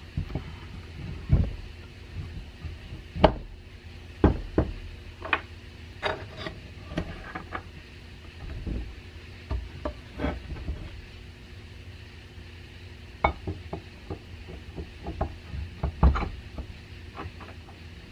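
Irregular metal knocks and clicks of an old electric motor's housing parts, the end bell, stator and rotor, being handled and fitted together on a wooden table, with a few louder thuds as parts are set down.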